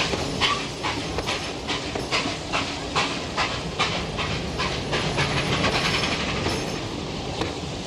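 Passenger carriages rolling past, their steel wheels clicking over rail joints at a quick, even beat over a steady rumble; the clicks grow fainter over the last couple of seconds.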